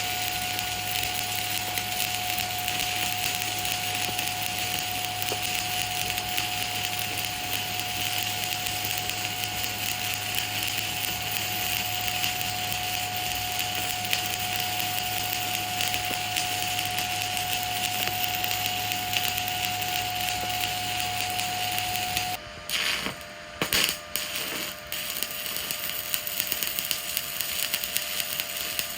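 Stick-welding (SMAW) arc crackling and hissing steadily as a bead is run, over a steady hum and whine. About two-thirds of the way in the arc breaks off suddenly. A few sharp knocks follow, then a lower steady whine with scattered clicks.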